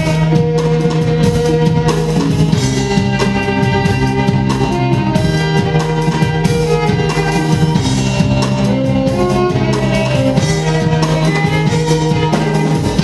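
Symphonic rock music: an orchestra's bowed strings playing over drum kit and guitar, held steadily loud.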